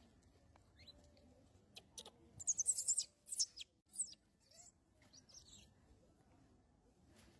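Baby macaque's distress squeals: a cluster of short, shrill, very high calls from about two seconds in, then a few fainter squeaks.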